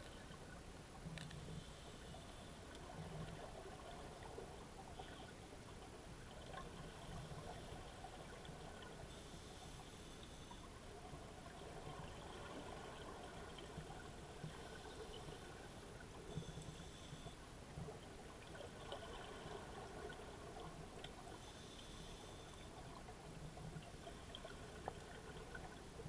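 Muffled underwater sound of scuba divers breathing through their regulators: rushes of exhaled bubbles every few seconds over a steady watery hiss, with a few faint clicks.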